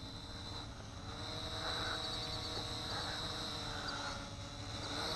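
Lishitoys L6059 toy quadcopter's motors and propellers humming faintly from high overhead as it comes down, the pitch wavering slightly, with a steady high tone throughout.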